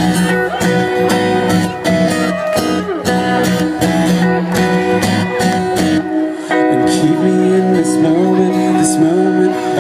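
Live pop-rock band playing an instrumental passage led by a strummed acoustic guitar. The deepest notes drop away about six seconds in.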